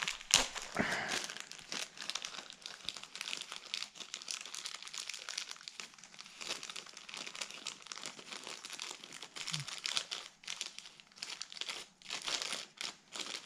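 A clear plastic bag of carburetor rebuild-kit parts crinkling as it is handled and picked through by hand, in irregular rustles.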